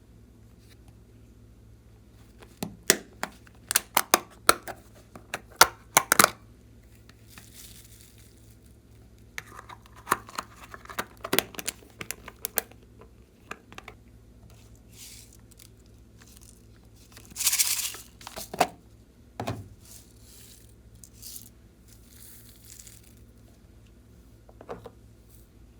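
Slime being worked by hand: quick clusters of sharp crackling pops, then a longer squelching hiss about two-thirds of the way in and a few single soft thuds.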